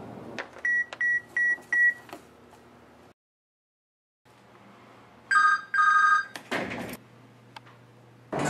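Cell phone text-message alerts: four short, quick, high beeps, then after a silent cut a different phone's alert, two longer two-note beeps.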